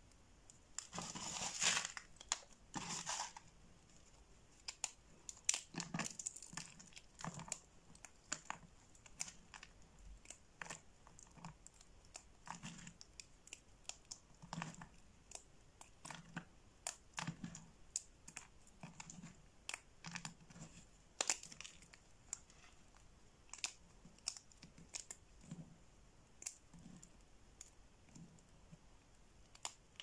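Dry bar soap shavings and small soap pieces crushed and snapped between fingers: a dense crunchy crumbling about a second in, then irregular sharp crackles and snaps.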